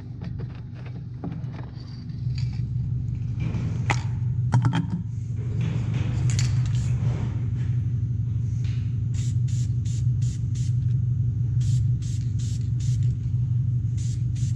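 Aerosol spray-paint can: clicks of the can being handled and shaken early on, then a series of short hissing sprays, one after another, from about nine seconds in. Under it all runs the steady low drone of an engine idling.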